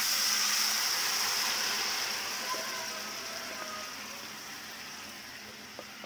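Boiled masoor dal poured into hot mustard oil with fried onions, sizzling loudly as it hits the pan and then bubbling. The hiss starts abruptly and slowly dies down.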